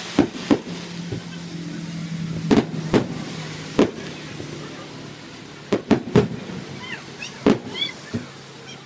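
Aerial fireworks shells bursting in a string of sharp bangs, about a dozen at uneven spacing, several in quick pairs, with a lull of about two seconds midway.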